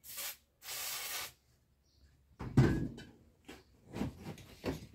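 Aerosol can of penetrating oil spraying in two short hissing bursts, the second longer at about two-thirds of a second, aimed at a seized seat-belt anchor bolt. From about two and a half seconds in come a series of knocks and clunks.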